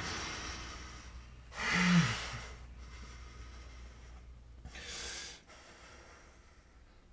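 A person's breathing close to the microphone, over the fading tail of music. About two seconds in comes a short gasp with a voiced note that falls in pitch, and near five seconds a longer breathy exhale.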